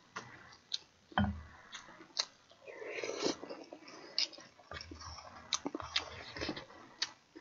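Close-up eating sounds of budae-jjigae, a noodle and sausage stew: chewing and slurping from a spoon, with sharp clicks and taps of the ladle and spoon against the pot and bowl.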